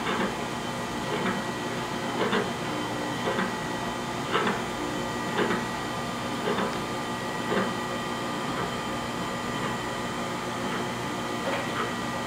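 Supertec STP-618CII surface grinder running with a steady machine hum and whine. Short surges come about once a second as the table reciprocates; they pause for a few seconds past the middle, then return near the end.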